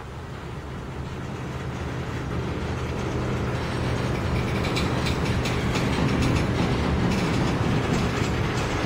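Freight cars of a slow-moving manifest train rolling past, a low rumble that grows louder over the first few seconds. From about halfway through comes a dense rattling and clanking of car bodies, couplers and wheels on the rails.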